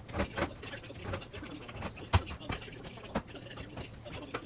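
Utility knife scraping and cutting along the edge of sheetrock, a string of short irregular scrapes and clicks, with a sharp knock about two seconds in.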